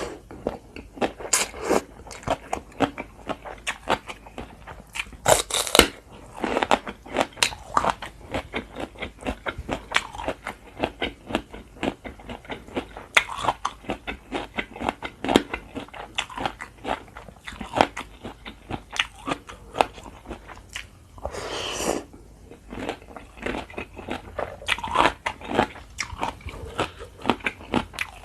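Crunchy food being bitten and chewed close to the microphone: a dense, irregular run of sharp crunches, with a couple of longer rustly bursts in between.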